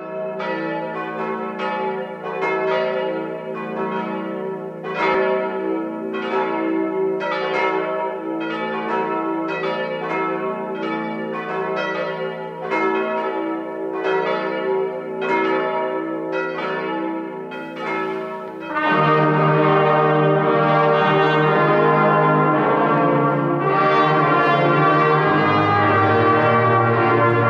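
Church bells ringing, several bells striking in an uneven run with each stroke dying away. About nineteen seconds in, the bells give way to a brass ensemble of trumpets, trombones and tuba playing held chords, with the tuba's low notes coming in near the end.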